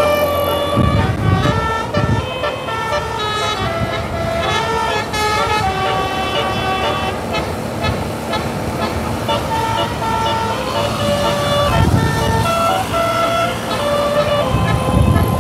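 Bus telolet horn, a multi-tone air horn, playing a tune note after note, with low rumbles now and then.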